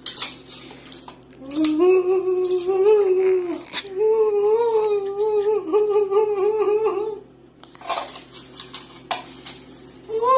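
A voice holding long, wavering notes in two stretches, a humming or howling kind of sound. Short hissy crackles come at the very start and again about eight seconds in.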